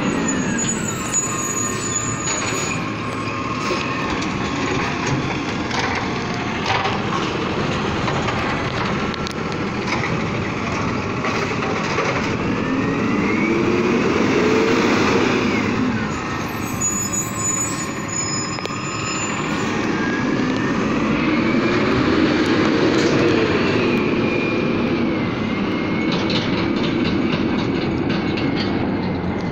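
Automated side-loader recycling truck working the curb: its diesel engine and hydraulics rise in pitch and fall back twice over a few seconds each, with scattered knocks and clatter, more of them near the end.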